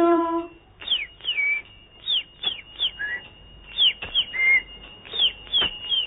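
Bird-like chirping: many short, quick downward-sweeping whistles at irregular intervals over a faint steady high whistle tone, standing in for the bird's "chu chu" in the children's song. A sung note dies away about half a second in.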